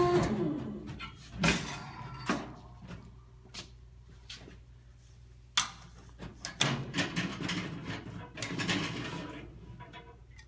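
Metal knocks and rattling clatter from handling the baler's door, hatch and strap bars, over a steady low machine hum. Single knocks come about a second and a half in and again near the middle, then a longer run of rattling clatter in the second half.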